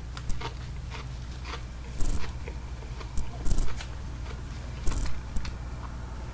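Close-up eating sounds of a person chewing food, with a few short crinkly rustles over a steady low hum.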